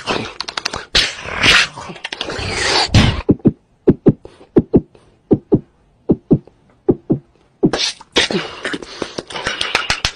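A man making rapid mouth sounds and beatbox-style pops close into a microphone. Dense hissing and clicking gives way about three seconds in to a run of separate pops, about one or two a second, and dense hissing returns near the end.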